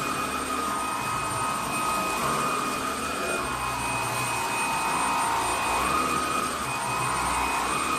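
SilverCrest SHAZ 20 A1 20 V cordless cyclonic vacuum cleaner running with a steady high whine, its pitch dipping and recovering several times as the motor's load changes.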